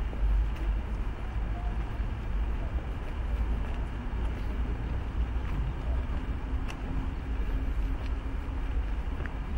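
Open-air outdoor ambience: a steady low rumble with a faint hiss above it and a few faint scattered ticks.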